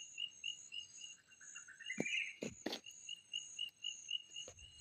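Faint insects chirping in an even rhythm, about three chirps a second, over a higher pulsing buzz. Around two seconds in comes a short rising trill, and a few soft clicks sound near the middle and again near the end.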